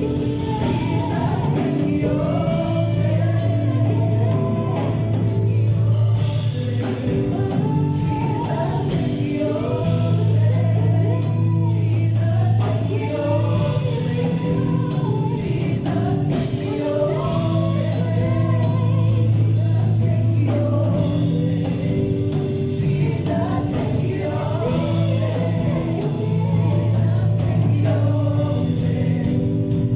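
Church worship team singing a gospel song together, voices over a band with a sustained bass line, in rehearsal.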